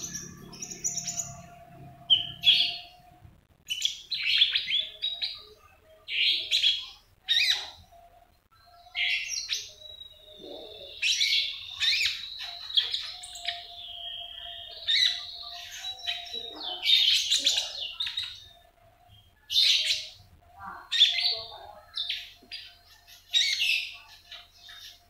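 Caged young konin songbird chirping and twittering in short, high, repeated phrases about every second or two, with a longer run of song and a held high whistle midway.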